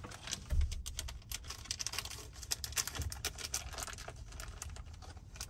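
Hands searching through small plastic dash cam mounting clips: a quick, uneven run of light clicks and rattles, with a soft thump about half a second in and another around three seconds in.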